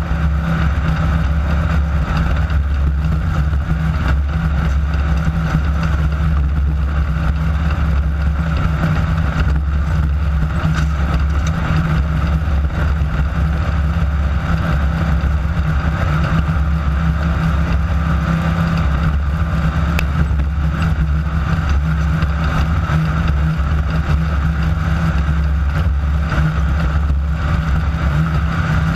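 Onboard sound of a Class 9 desert race buggy being driven in a race: its engine runs in a steady loud drone over a heavy low rumble from the chassis and terrain, with no big changes in pace.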